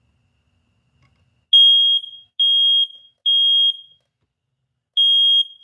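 Older residential smoke alarm sounding under its test button: three loud, high-pitched beeps of about half a second each, a pause, then a fourth beep starting the next round. This is the standard three-beep evacuation pattern, and it shows the alarm works.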